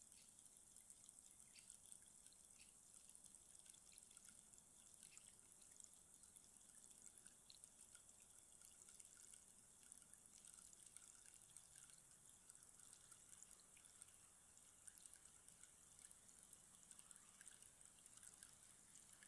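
Rainstick standing upright, its filling trickling down inside as a faint, steady patter of many tiny ticks, like light rain.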